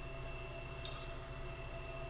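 Steady low electrical hum with a faint steady whine above it, and two faint clicks about a second in.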